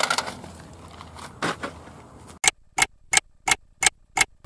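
Aluminium beer cans being crushed: a short crunch about a second and a half in, then six sharp, evenly spaced clicks, about three a second, with silence between them.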